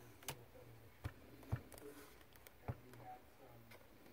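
Handling noise: about four light knocks and clicks as a handheld multimeter is moved about on a silicone work mat, over a faint low hum.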